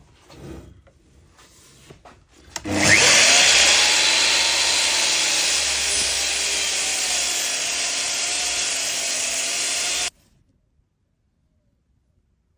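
A few light knocks and handling sounds, then a power tool starts up about two and a half seconds in and runs steadily and loudly on wood, its motor tone wavering slightly. It stops abruptly about ten seconds in.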